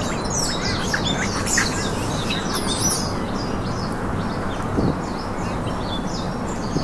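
Birds chirping: many short high chirps, thick over the first three seconds and sparser after, over a steady background noise.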